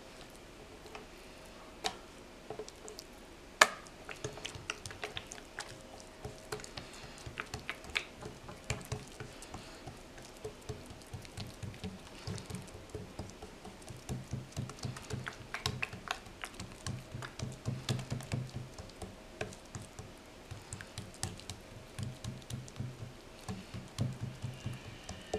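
Oiled hands patting and pressing rghaif dough thin against the oiled bottom of a glazed clay bowl: soft, quick slaps in runs, sparse at first and denser in the second half. One sharp click stands out a few seconds in.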